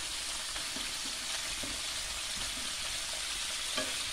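Cauliflower florets frying in hot oil in a pan: a steady sizzle.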